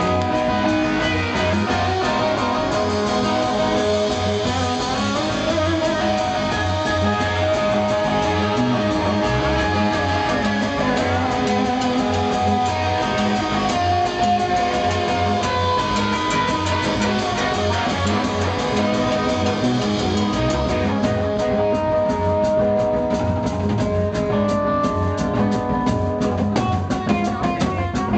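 Live rock trio playing: sustained electric guitar lines over bass guitar and a drum kit, loud and steady throughout.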